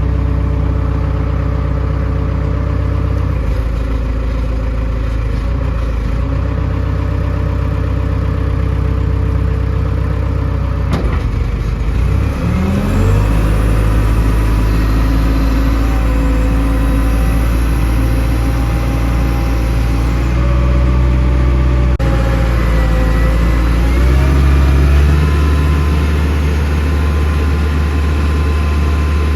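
Engine-driven welder's gasoline engine running steadily. Its speed rises with a short upward glide about 12 seconds in, and shifts again with gliding pitch about 24 seconds in.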